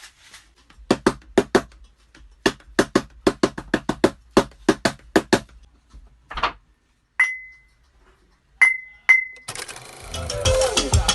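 Objects struck by hand to make beat sounds: a quick rhythmic run of sharp taps, about four or five a second, then a single knock and three short ringing clinks. Near the end a full beat with drums comes in.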